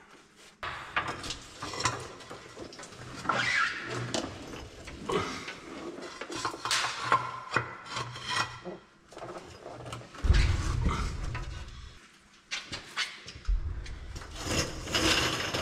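Irregular rubbing, scraping and knocking of hands and tools working on the wiring under a pickup truck. About ten seconds in, and again near the end, a low rolling rumble comes from the mechanic's creeper moving on the concrete floor.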